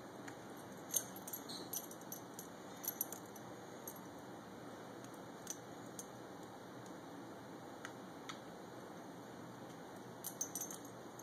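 Metal ID tags on a Siberian husky's collar jingling in short, scattered clinks as the dog moves its head, loudest about a second in and again near the end.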